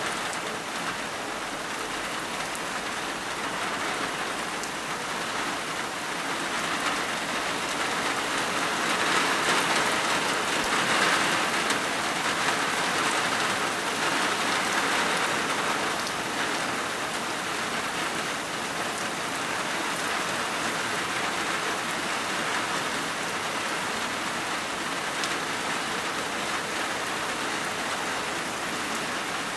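Heavy rain pouring steadily onto surfaces during a summer thunderstorm, growing heavier for several seconds in the middle before settling back to a steady downpour.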